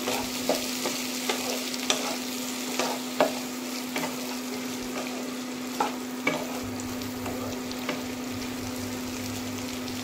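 Onion, capsicum, tomato and chilli sizzling in oil in a non-stick wok while being stir-fried, with irregular scrapes and taps of the spatula against the pan.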